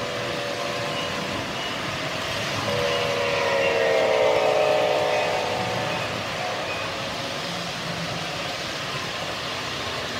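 Model freight train running past on its track: a steady rolling rumble of wheels and motor. A pitched tone comes in about three seconds in and slides slightly lower as the sound swells, then fades after about five seconds.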